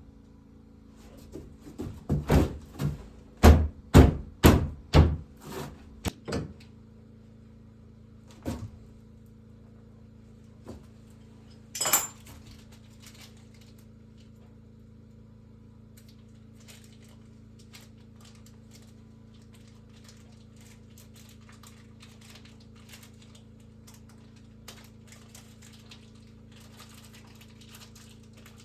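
A quick run of about eight sharp knocks on wood, roughly half a second apart, then a couple of single knocks and a bright clink. A steady low hum runs underneath.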